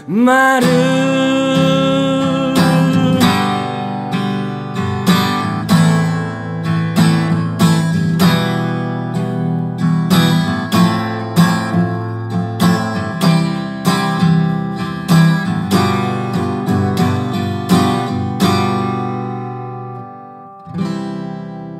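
A song ending on acoustic guitar: the singer holds the last word for about three seconds, then the guitar strums on alone at about two strokes a second and fades away, before one last chord near the end that rings out.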